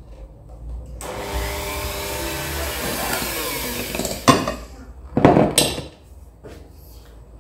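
Electric hand mixer with twin wire beaters running, creaming softened butter in a ceramic bowl. It starts about a second in, runs steadily for about three seconds and stops, followed by two loud knocks.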